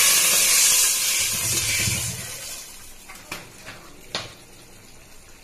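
Water pouring into a steel degchi (cooking pot), a steady rush that tails off about two seconds in, followed by a few faint clicks.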